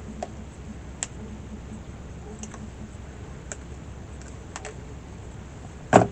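Wire being stripped of its insulation: a few light, scattered clicks of the tool on the wire, then one loud sharp snap near the end.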